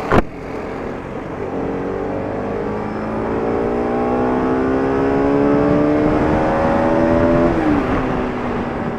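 Motorcycle engine pulling under throttle, its pitch rising steadily and growing louder for several seconds, then dropping sharply about seven and a half seconds in, over steady wind and road noise. A sharp knock sounds right at the start.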